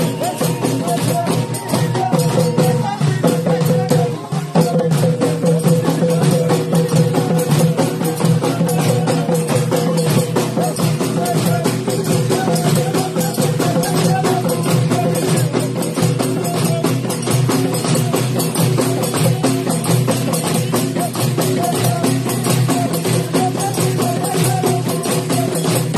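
Moroccan hiti folk music: a troupe of frame drums (bendir) beaten together in a dense, driving rhythm, with a sustained melodic line carried over the drumming.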